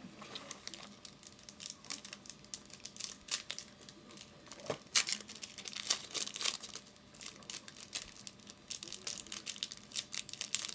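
Trading-card pack wrapper being torn open and crinkled by hand, a run of irregular sharp crackles.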